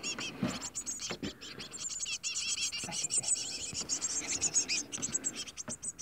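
A brood of young Eurasian blue tits in the nest chirping continuously: many rapid, high, thin calls overlapping. A few faint rustles or scrapes come in between.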